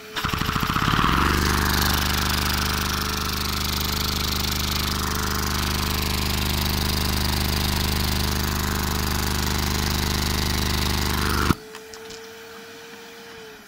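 LEGO hinge-valve vacuum engine driven by a vacuum cleaner's suction, clattering into motion and speeding up over about a second to a fast, steady buzzing rattle over the rush of air. It stops suddenly with a click about eleven seconds in, leaving the vacuum cleaner's steady whine, which begins to drop in pitch near the end.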